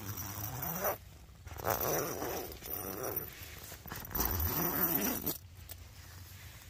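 Tarptent Scarp 1 tent door zip being pulled open by hand in three rasping strokes, the last ending about five seconds in.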